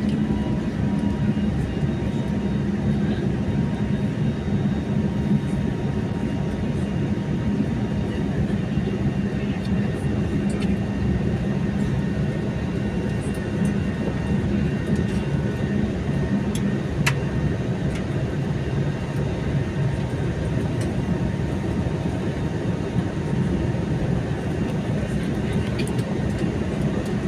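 Airliner cabin noise in the climb: the steady drone of the engines and airflow heard from inside the passenger cabin, deep and even.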